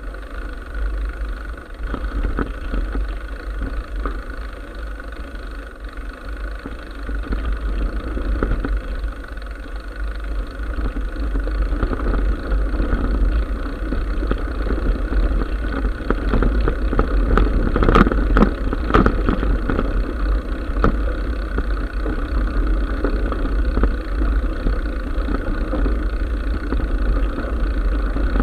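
Mountain bike rolling over a rough grassy and gravel dune track: tyre rumble with scattered knocks and rattles from bumps, most frequent a little past halfway, over a steady low rumble of wind on the bike-mounted camera's microphone.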